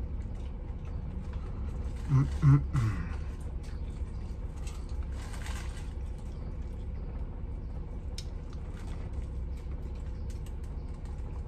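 Low, steady rumble of a shuttle bus's idling engine heard inside the cab. A man makes a short murmur about two seconds in, and there are a few light rustles and clicks.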